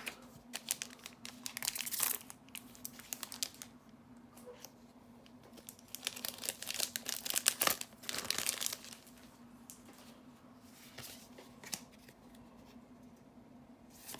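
Foil booster-pack wrapper being torn open and crinkled, in two bouts of crackly rustling a few seconds apart, over a faint steady hum.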